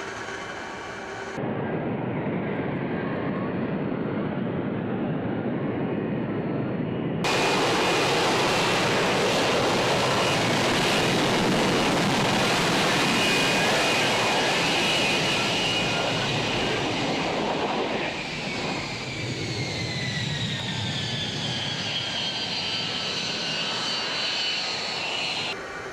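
F-35 Lightning II's F135 jet engine running loud, heard in several abruptly cut-together segments; in the last stretch a high whine falls steadily in pitch under the jet noise.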